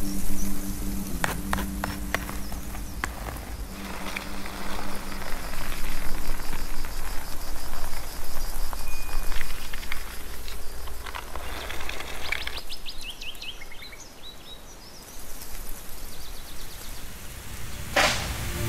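Outdoor ambience: a steady noisy bed with a low hum held through the first few seconds, scattered sharp clicks, and a quick run of ticks about eleven seconds in. A sharp noisy swell comes near the end.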